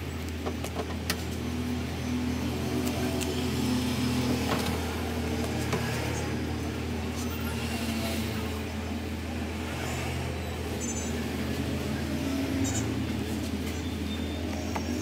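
Steady low hum of motor vehicle engines, with scattered light crinkles and taps of plastic cling film being wrapped around a small cardboard box.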